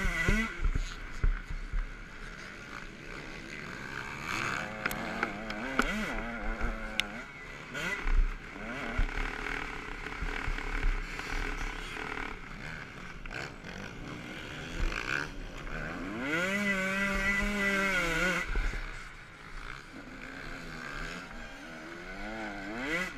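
Motocross bike engine at race pace, its pitch repeatedly climbing and dropping as the rider goes through the gears, with one high rev held for about two seconds late on. Wind rumble and knocks from the rough track sound on the bike-mounted camera's microphone.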